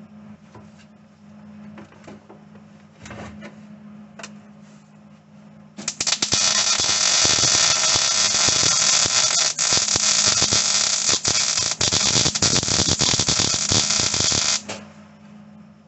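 Wire-feed welding gun running a bead on thin sheet-metal floor pan, the arc crackling steadily for about nine seconds. It starts about six seconds in and stops shortly before the end.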